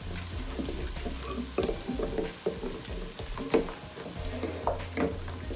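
A spoon stirring and scraping, with irregular clicks and knocks about every half second to a second, over the steady sizzle of onions frying in ghee.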